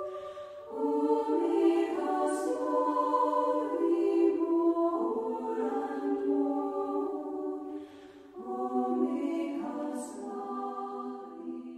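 A choir of Benedictine nuns singing a slow sacred hymn in long held notes, in phrases with short breaks between them, the last phrase dying away at the end.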